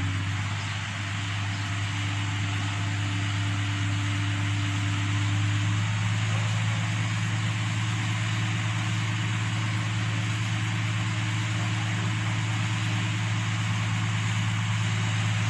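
Truck-mounted crane's engine running steadily with a low hum. About six seconds in, its tone shifts slightly and the low hum grows a little stronger.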